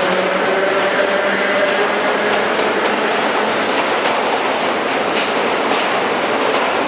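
Vintage R1/R9 subway cars running on the track: a steady loud rumble with repeated clicks of the wheels over rail joints and a faint whine in the first couple of seconds.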